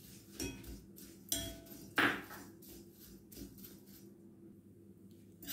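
Steel spoon scraping and knocking against a kadai while stirring flattened rice (poha) being crisped in a little oil. There are several short scrapes and taps, the loudest about two seconds in, and it goes quieter near the end.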